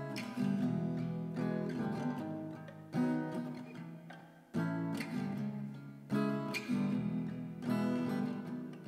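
Background music: acoustic guitar strumming chords, each strum ringing out and fading before the next, roughly every second or so.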